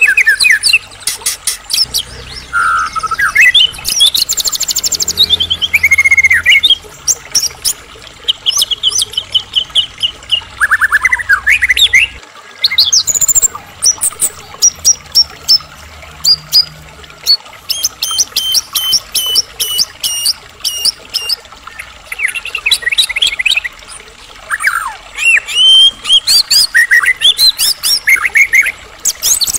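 White-rumped shama (murai batu) in full song: a long, varied stream of clear whistles, rising and falling sweeps, trills and rapid runs of repeated notes, with only brief pauses.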